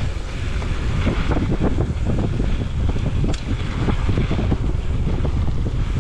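Wind buffeting the microphone of a camera on a mountain bike descending a dirt singletrack, over the rumble of the tyres on the trail, with frequent small knocks and rattles from the bike over bumps.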